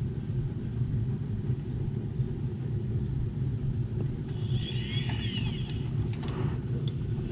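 Hot-water boiler heating system running, a steady low rumble. About five seconds in there is a brief burst of higher, wavering chirps.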